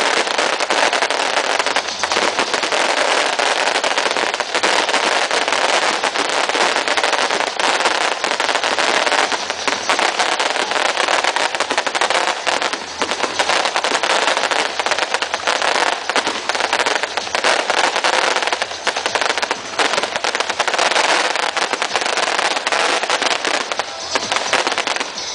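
Fireworks display going off: a dense, continuous rapid crackle of bursting fireworks and firecrackers, with no pause.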